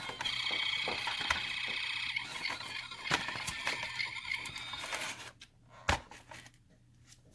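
Toy ambulance's electronic sound effect playing through its small speaker, a buzzy, fast-warbling tone that cuts off suddenly about five seconds in, followed by a single click.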